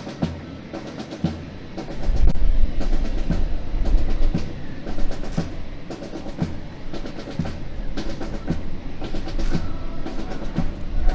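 Music with a steady drum beat, about one stroke a second; a deep bass comes in about two seconds in and the music gets louder.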